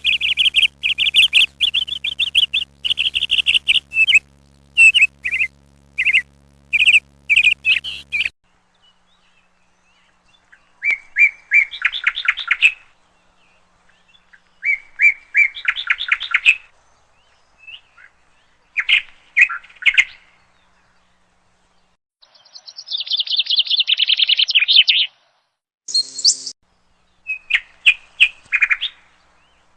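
A bird calling in bouts of rapid, high-pitched chirps and rattling trills, separated by pauses of a second or more; the longest trill comes near the end. A steady low hum sits under the first few seconds and stops abruptly.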